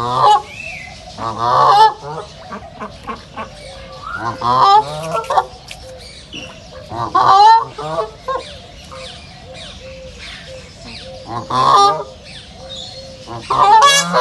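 Ducks quacking in loud bouts of several calls each, about six bouts spaced two to three seconds apart.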